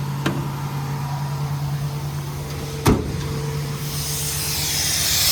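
Ford 6.7 L Power Stroke V8 diesel running at raised idle to drive the VMAC engine-driven air compressor, a steady hum. A sharp metallic clank about three seconds in, then compressed air begins hissing near the end.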